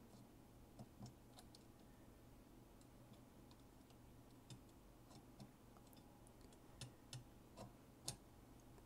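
Faint, irregular light metallic clicks of steel feeler gauge blades being slid and tapped against a combination square and a printed plastic cube, over a low steady hum. The clicks come more often in the second half, the loudest about eight seconds in.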